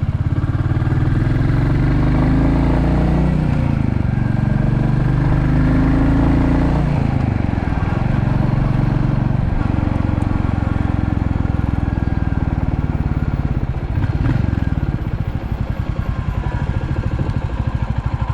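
Royal Enfield Classic 350's single-cylinder engine running as the motorcycle rides along, a steady low thumping beat. The engine note drops about seven seconds in and eases off again near fourteen seconds.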